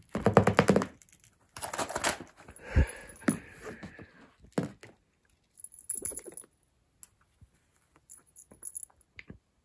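A cat pouncing on and batting at a string wand toy on a shag rug: scuffling and rustling with soft thumps, busiest in the first few seconds and sparser after.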